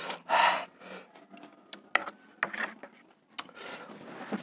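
A short hissing breath drawn after chilli heat, then a few light clicks, and a cloth rubbing over the mouth near the end.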